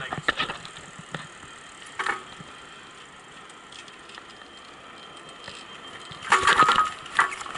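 Bicycle rattling and clicking as it rolls over rough pavement, over a steady rush of wind and tyre noise. There is a louder burst of clatter about six seconds in.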